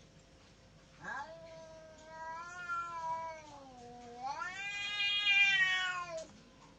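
Domestic cat yowling in one long drawn-out call of about five seconds that starts about a second in. It dips low in pitch midway, then rises and grows loudest near the end. This is a hostile yowl from a fight between two cats.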